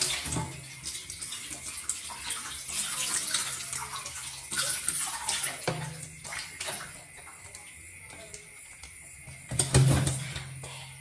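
Water poured from a plastic bowl splashing over a baby monkey and into a metal washing basin, starting suddenly and splashing and dribbling unevenly for several seconds before easing off. A brief, louder burst of noise comes near the end.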